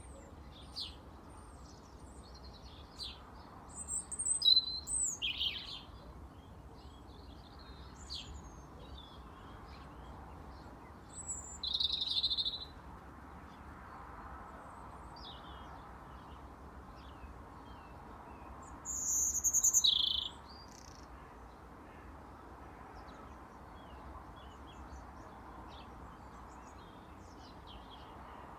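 European robin singing in short, high, warbled phrases with pauses between, the loudest phrases coming about five, twelve and twenty seconds in. A steady low rumble runs underneath.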